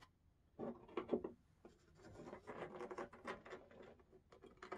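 Faint rubbing and rustling from hands handling a drive belt and turntable on a wooden bench: a short cluster of scrapes about half a second in, then uneven rubbing from about two seconds on.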